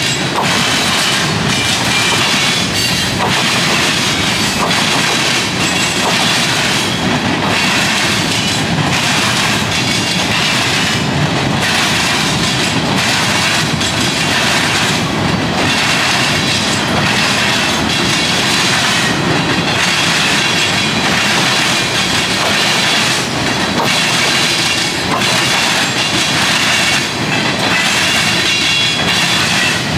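CN freight cars rolling across a railroad diamond crossing, pounding the diamond: a loud steady rumble with heavy clacks every second or two as the wheels cross the gaps in the crossing.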